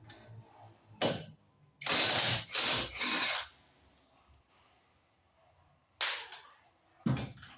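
Hand tools working on a car's axle and hub: bursts of metallic ratchet-like clicking and clatter. The loudest cluster comes about two to three and a half seconds in, with shorter bursts near one, six and seven seconds.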